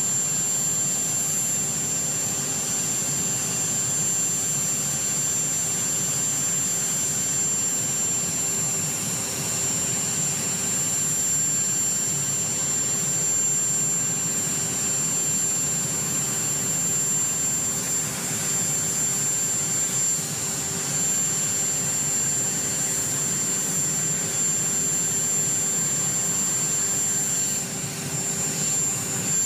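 Aircraft turbine engines running steadily: a constant rushing noise with a high, unchanging whine over it.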